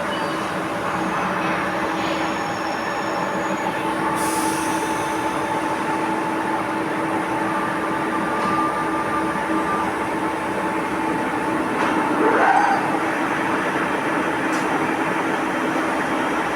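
5-axis CNC milling machine running: a steady whirring noise with a few steady tones, and a brief rising whine about twelve seconds in.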